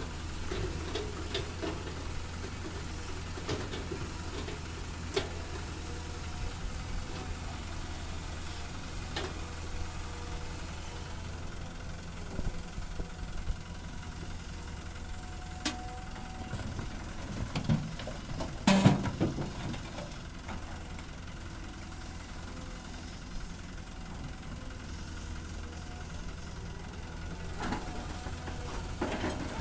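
Caterpillar hydraulic excavator's diesel engine running steadily while its bucket digs into a rocky slope, with scattered knocks and clatter of stone and steel. The loudest clatter comes about two-thirds of the way through, and another run of knocks comes near the end.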